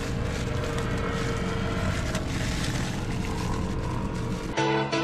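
A motor running steadily with a low hum and a faint held tone, over street noise. Electronic music with a beat cuts in abruptly near the end.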